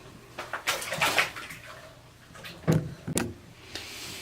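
A few sharp knocks and bumps with short rustling sounds in between, the strongest about a second in and again near the three-quarter mark.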